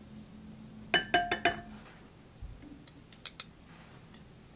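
Glass bowl clinked four times in quick succession, each clink ringing briefly with a bright pitched tone. A few light, sharp clicks follow a couple of seconds later.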